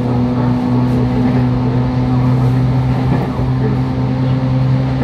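Interior running sound of a JR Kyushu 811-series EMU motor car (Moha 811) cruising: a steady hum holding one pitch over the rumble of wheels on rail.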